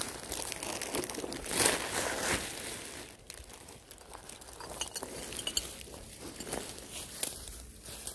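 Plastic rubbish bag rustling and crinkling as litter is handled and gathered into it, loudest in the first couple of seconds, with a few light clinks and crunches of debris.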